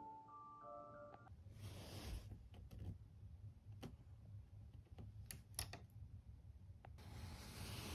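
Several sharp clicks of buttons being pressed on a hotel bedside light-control panel, spaced unevenly, with two soft swishes of movement. A short marimba-like music phrase ends about a second in.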